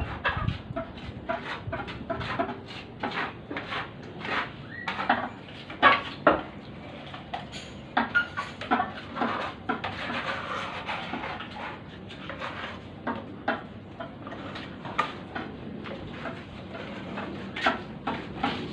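Irregular light taps and short scrapes of hard objects knocking together, one to three a second, over a low steady background.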